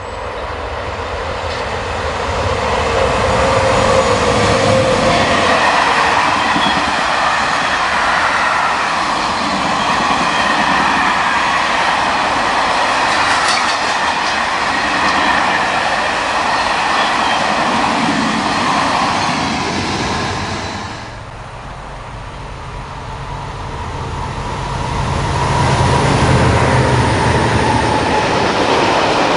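A long freight train of hopper wagons rolling past close by, its steel wheels running loud and steady on the rails. About 21 s in the sound drops and changes as a second train arrives: two diesel locomotives coupled together pass close with a steady low engine hum, hauling hopper wagons.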